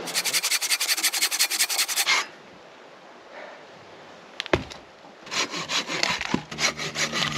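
Folding hand saw cutting through a felled conifer log in fast back-and-forth strokes. The sawing stops for about three seconds, with a single knock in the pause, then starts again.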